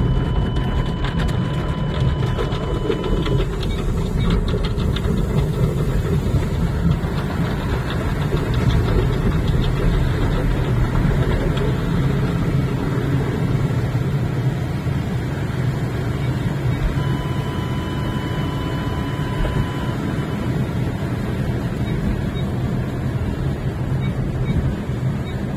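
Sonny's tunnel car wash heard from inside a car: a steady rumble of the wash equipment, with cloth strips slapping and rubbing over the car and water spraying on the glass. A steady high tone sounds twice, once at the start and again about two-thirds of the way through.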